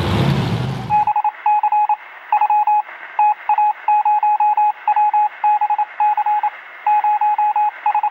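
Outdoor rumbling noise cuts off about a second in and gives way to a radio-style transmission of beeps at one steady pitch, keyed on and off in quick groups of short and longer tones like Morse code, over a faint hiss.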